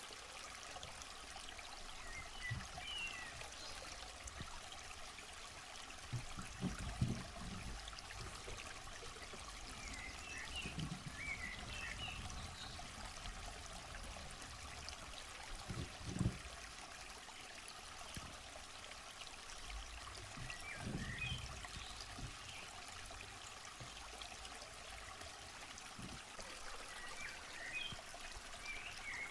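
Steady trickling, stream-like sound, with small clusters of short high chirps now and then and a few soft low thumps.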